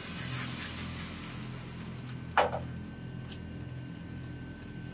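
Motorized target carrier on an indoor range running along its overhead track, a steady hiss over a low hum that stops about two seconds in as it brings the paper target up to the shooting booth. About half a second later comes a single sharp knock.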